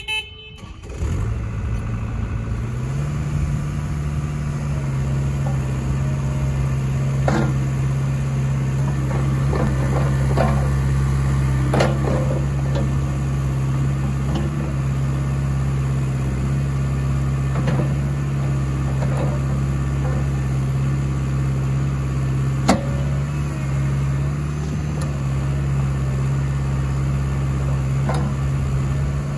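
Caterpillar 305E mini excavator's diesel engine running steadily, its speed stepping up about three seconds in, while the hydraulic boom, stick and bucket are worked, with a few sharp clanks from the machine.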